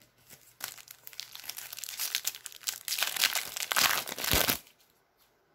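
Foil wrapper of a Leaf Draft football card pack crinkling as it is handled and torn open. The crackling builds over about four seconds, is loudest in the second half, and stops abruptly near the end.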